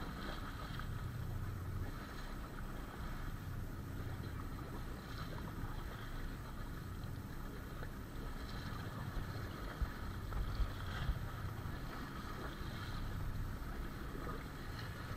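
Steady wind and water noise aboard a small boat at sea, with a low rumble underneath and a few short knocks about ten and eleven seconds in.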